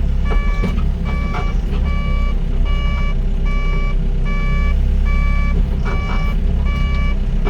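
Doosan DX55 mini excavator's diesel engine running steadily under an electronic warning beeper that sounds about once every 0.8 seconds. A few short metallic knocks are heard between the beeps.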